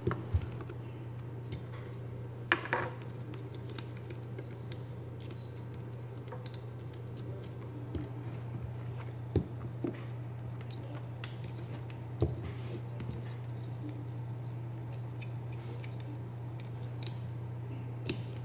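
3.5-inch hard drives and SATA cable plugs being handled on a desk: scattered clicks and knocks, about half a dozen in all, over a steady low hum.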